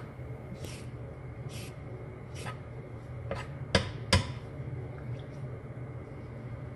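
Vegetable peeler shaving strips off an asparagus spear on a wooden cutting board: a short rasping stroke about once a second, with two sharper knocks around four seconds in, over a steady low hum.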